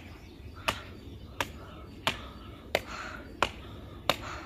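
Footsteps climbing stone stairs: a sharp, even tap of each footfall on the granite steps, about one and a half a second.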